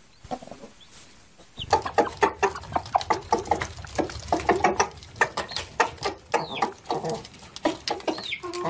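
Broody hen on her eggs clucking in a fast, dense run of short clucks, starting about a second and a half in over a low background hum. Before that there are only faint, high, short peeps.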